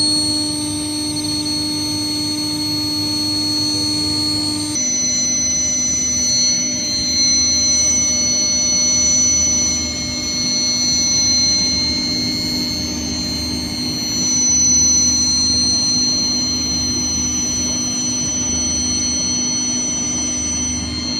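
Steel plate induction heating furnace running, giving a steady electrical whine of several held tones over a mechanical hum. The tones step to slightly different pitches about five seconds in.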